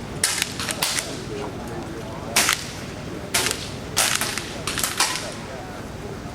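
Air rifles firing pellets in benchrest competition: about ten sharp cracks at irregular intervals, several close together in the first second and more scattered through the rest.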